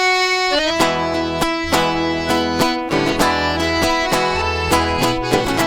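Instrumental intro of a sertanejo song: an accordion opens on held notes, and strummed guitar with a steady beat and bass comes in about half a second in.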